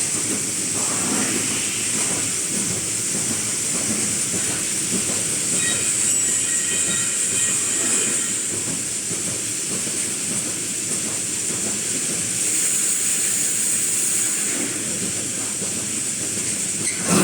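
Automatic wire mesh welding machine running: a steady high hiss over dense, irregular metallic clatter.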